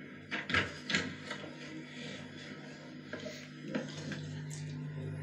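Faint rustles and light clicks over a steady low hum, with no one speaking.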